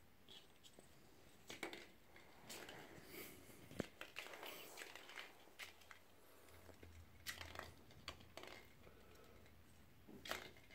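Faint crinkling of a crumpled aluminium-foil ball as a kitten bats it about, with light clicks and skitters on a hard stone floor. It comes in scattered short rustles, with one sharper click about four seconds in.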